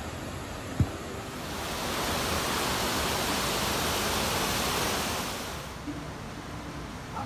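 Waterfall rushing: a loud, even hiss of falling water comes in about a second and a half in and drops away shortly before the end, leaving the quieter sound of flowing water. A single sharp knock just under a second in.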